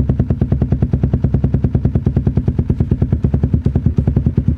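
Suzuki Raider 150 FI's single-cylinder four-stroke engine idling through a custom aftermarket exhaust with an imported muffler body, giving an even, steady train of loud exhaust pulses about a dozen a second.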